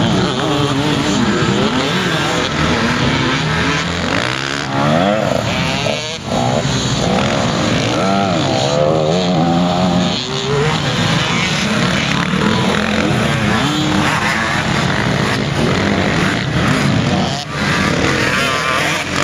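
Motocross dirt bike engines revving up and down as two bikes ride close together around a dirt track, the pitch rising and falling as the riders open and close the throttle.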